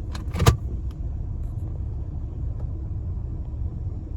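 John Deere 7330 tractor running steadily under load while pulling a wheel rake through corn stalks, a low rumble. Two short sharp knocks come about half a second in.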